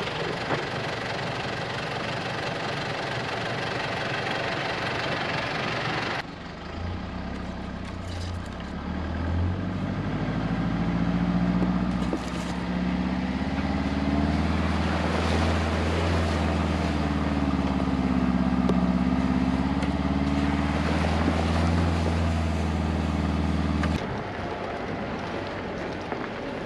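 Mitsubishi 4x4 ute driving along a dirt bush track, its engine running with a steady low drone that rises and falls slightly in pitch, mixed with road and body noise. The sound changes abruptly about six seconds in and again near the end.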